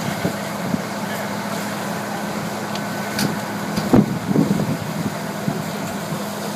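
Fire apparatus diesel engine running steadily at pumping speed, with a hiss of water spray. About four seconds in there is a sharp knock, followed by a few clattering hits.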